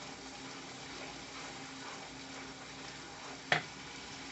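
Onion and ground spice masala frying gently in oil in a frying pan, a steady low sizzle, with one sharp tap about three and a half seconds in.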